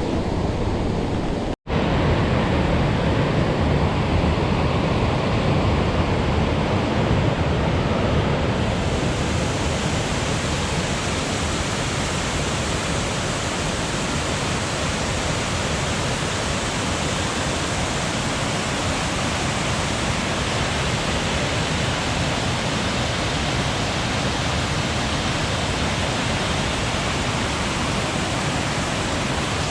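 Rushing water of a river waterfall in high flood after heavy rain: a steady, dense noise that never lets up. The sound cuts out for a split second about a second and a half in, and grows hissier about nine seconds in.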